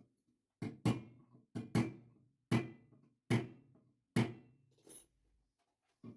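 A series of hard knocks on a solid object, about seven in all, coming roughly once a second with a couple in quick pairs early on, each dying away quickly.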